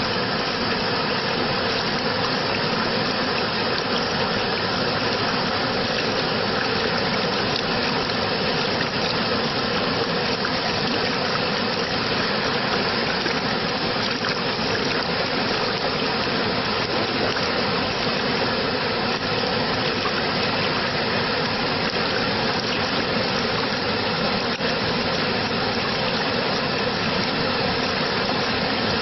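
Rushing water, a steady dense wash of sound that does not change.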